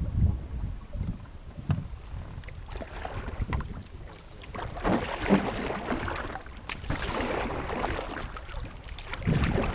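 Canoe paddling: paddle strokes swishing and splashing in the water at an irregular pace, with a few sharp knocks and low wind rumble on the microphone.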